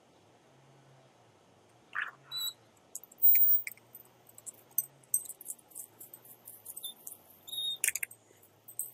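A glass door with a lever handle being opened and let shut: clicks and rattles of the latch and handle, a couple of short squeaks, and a sharp latch click near the end as it closes.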